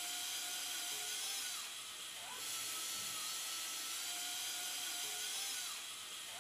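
Battery-powered surgical drill driving a self-tapping cortex screw through a bone plate: a steady, high motor whine. About two seconds in, and again near the end, the motor slows and then spins back up with a rising pitch.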